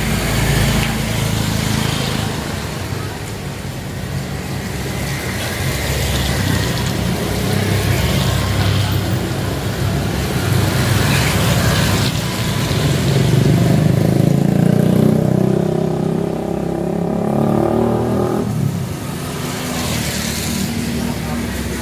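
Motor vehicles passing on a street with their engines running. About two-thirds of the way in, one engine rises in pitch as it revs and goes by.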